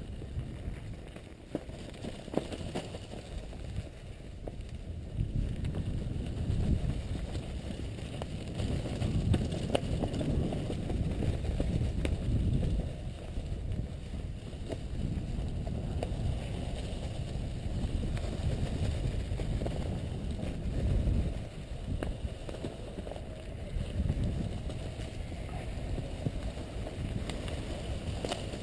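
Mountain bike riding downhill over a leaf-covered dirt trail: tyres rolling over dry leaves and the bike rattling with scattered clicks over bumps, under a low, uneven rumble of wind on a helmet-mounted camera microphone.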